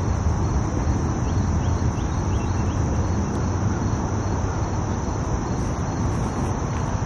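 Insects droning in a steady high-pitched chorus, over a loud, even low rumble.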